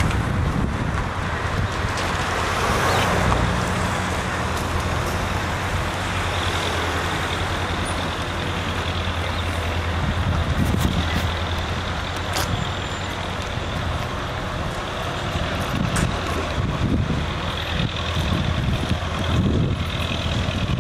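A motor vehicle's engine running steadily, a low hum under general street traffic noise.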